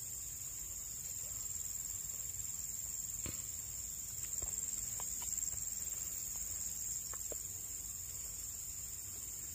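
Insects droning steadily at one high pitch, over a low rumble, with a few faint clicks in the middle of the stretch.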